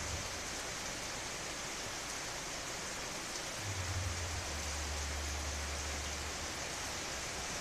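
Steady rain falling, an even hiss of drops. A low rumble comes in under it about halfway through and fades about a second before the end.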